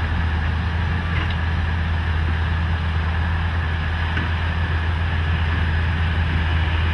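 Heavy vehicle engine running steadily: a constant low drone with a hiss of noise above it, unchanging throughout.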